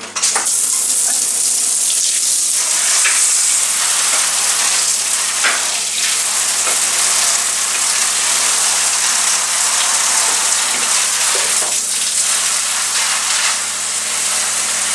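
Hand-held shower head spraying a steady stream of plain hot water over a tumble dryer's condenser unit, flushing built-up fluff out of its vanes. The spray starts at once and keeps on with a loud, even hiss.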